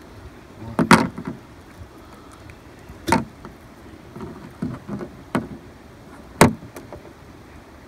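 Sharp knocks and clicks of fishing gear being handled aboard a boat while a hook and line are worked by hand. There are four loud knocks, about a second in, at three seconds, and twice more past five and six seconds, with lighter clicks between, over a faint steady background.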